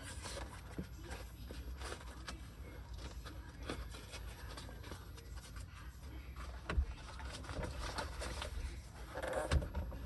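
Small clicks, knocks and rubs of a plastic roof trim compartment being handled and fitted into place, over a low steady hum.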